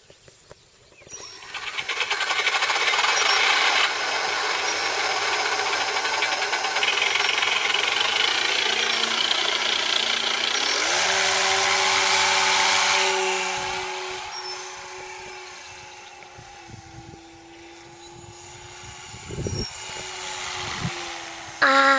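A small electric RC warbird (a 31-inch P-40) starting up and flying: propeller and motor whir, with a MrRCSound mini sound unit playing a simulated piston-engine sound. It starts about a second in, steps up in pitch about halfway, then grows quieter as the plane moves away.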